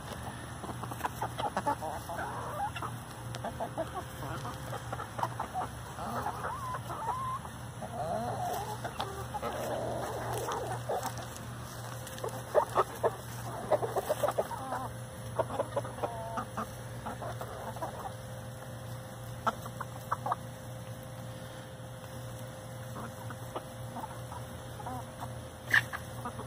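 A flock of chickens clucking and calling softly while they feed, with a run of quick, sharp pecking taps about halfway through.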